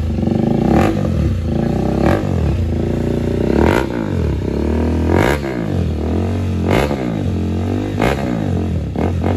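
KTM Duke 390's single-cylinder engine revved through an aftermarket full-system exhaust: about six quick throttle blips a little over a second apart, each pitch rising and falling back toward idle.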